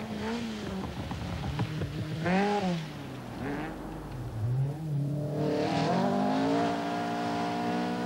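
Opel Manta 400 rally car's engine revving hard at speed, its pitch rising and falling as the driver lifts and gets back on the throttle, then climbing steadily through the last three seconds.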